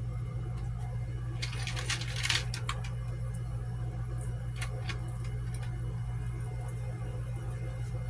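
Small screws and fixture parts being handled, giving light clicks and rattles: a quick cluster about one and a half to three seconds in and a couple more near five seconds, over a steady low hum.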